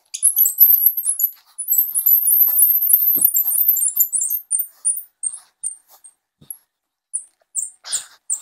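Hand brace and bit boring through mahogany, squeaking high and fast with the turning. After about four seconds the squeaks thin out to separate chirps roughly twice a second.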